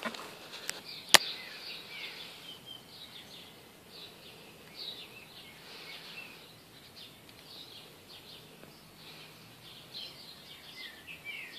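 Small birds chirping and twittering throughout, many short rising and falling chirps. A single sharp click about a second in is the loudest sound.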